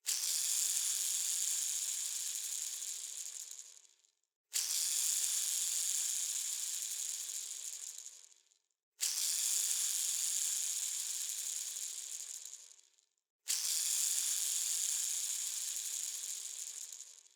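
A bearing spinning freely, set going four times: each spin starts suddenly with a high, hissing whir and fades away over about four seconds as it winds down.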